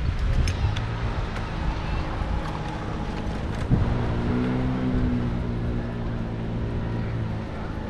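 Wind rumbling on the microphone of a moving bicycle, with scattered clicks and rattles. About four seconds in there is a sharp knock, then a steady engine hum from a motor vehicle close by for about three seconds.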